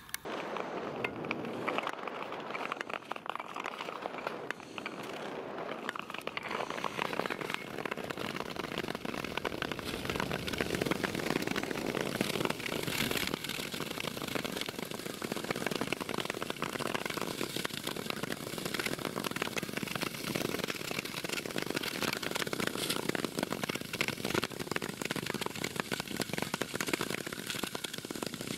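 Ice skate blades gliding and scraping over rough natural ice: a steady, dense crackling hiss that starts suddenly.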